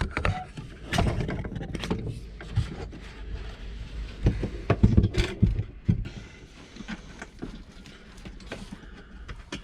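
Irregular knocks, clicks and scrapes of a metal diesel heater unit being handled and set in place, with a few heavier thumps about a second in and again around the middle.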